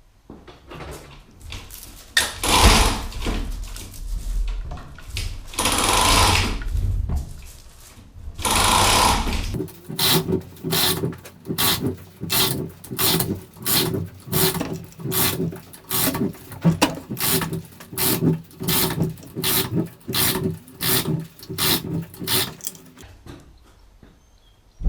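Power tool run in three short bursts, then a steady rhythmic pulsing about twice a second for over ten seconds, which stops near the end.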